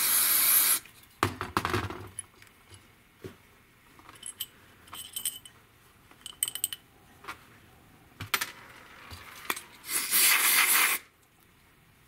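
Aerosol carburetor cleaner hissing from a spray can's straw onto a carburetor float bowl and jet, cutting off under a second in. Light clicks and small metallic clinks follow as the brass jet and bowl are handled, then a second spray of about a second near the end.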